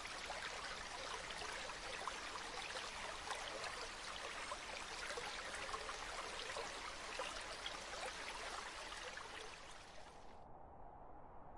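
A steady rush of running water, flecked with fine crackles, that cuts off abruptly about ten seconds in, leaving only a much fainter hush.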